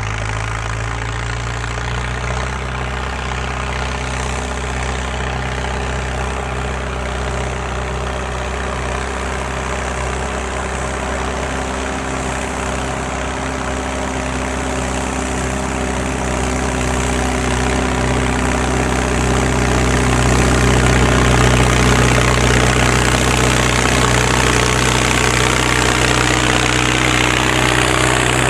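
Straight-piped Ford 7610 tractor's four-cylinder turbo diesel running at a steady pace while pulling a 10 ft level bar over tilled soil. Its open exhaust note grows louder as the tractor draws near, and is loudest as it passes close by near the end.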